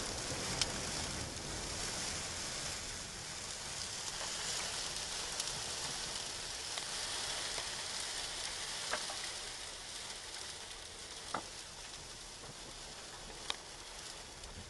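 Windblown sand hissing against a vehicle's windshield and body in a sandstorm, with a few sharp ticks scattered through it. The hiss eases slightly near the end.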